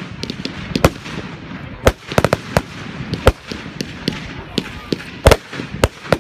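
Fireworks display: aerial shells bursting overhead in a string of sharp bangs at irregular intervals, some in quick clusters around two seconds in, the loudest about five seconds in.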